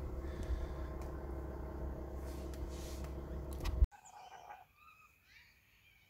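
A steady low mechanical hum that stops abruptly about four seconds in, followed by faint, high bird chirps with short rising and falling calls.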